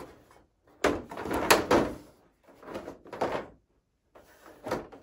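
The back cover panel of a large flat-screen TV being slid and pushed into alignment on the chassis, scraping and knocking in two longer bursts and a short knock near the end.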